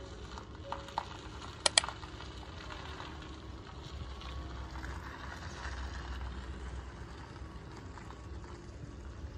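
Quiet outdoor ambience with a steady low rumble, and two sharp clicks in quick succession a little under two seconds in.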